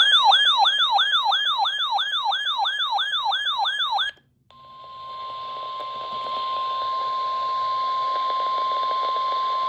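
A weather alert radio's alarm: a fast warbling siren that rises and falls about three and a half times a second for about four seconds and stops abruptly. After a short silence, a steady single-pitch tone near 1,000 Hz comes in over radio hiss. This is NOAA Weather Radio's 1050 Hz warning alarm tone, which signals a warning broadcast about to follow.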